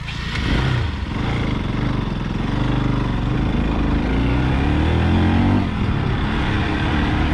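Motorcycle engine pulling under throttle, its pitch climbing several times with a brief drop about six seconds in, over a steady rushing noise.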